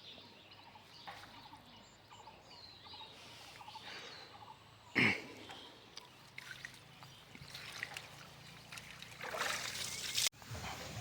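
Water trickling and sloshing, with birds calling. A louder splash comes about five seconds in, and a stretch of louder splashing just before the sound cuts off abruptly near the end.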